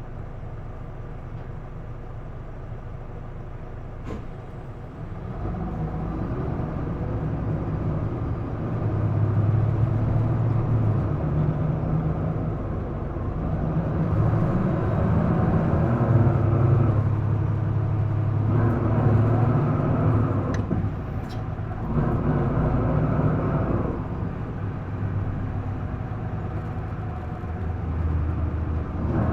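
Diesel engine of an Isuzu Erga PDG-LV234L2 city bus, heard from inside the cabin. It idles quietly, then about five seconds in the bus pulls away and the engine revs high, rising and falling in pitch through several gear changes.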